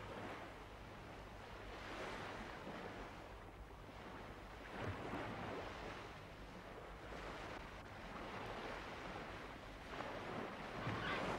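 Faint waves breaking on a shore, the surf swelling and falling back every two to three seconds, with birds calling near the end.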